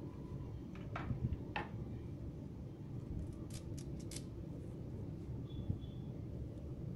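Light taps and small sharp clicks as chopped vegetables and curry leaves are dropped by hand into a stainless steel mixer jar: two soft taps about a second in, then a quick run of about five sharp clicks around the middle, over a faint steady hum.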